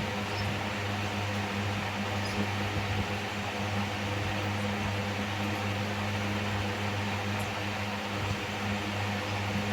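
Steady electric motor hum with an even fan-like hiss, unchanging throughout, like an electric fan or air cooler running. A few faint, short high chirps sound in the first few seconds.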